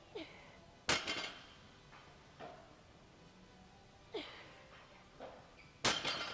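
Loaded barbell set down on the floor between deadlift reps: two heavy clanks of the plates about five seconds apart, each followed by a short rattle. Just before each clank comes a short breathy grunt from the lifter.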